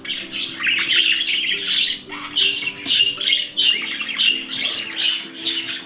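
Budgerigars chattering in a rapid run of short, high chirps, over soft background music with low sustained notes.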